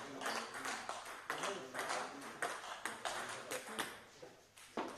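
Table tennis ball clicking off bats and tables in a rally, a quick uneven run of sharp hits that stops about four seconds in, with one more click near the end.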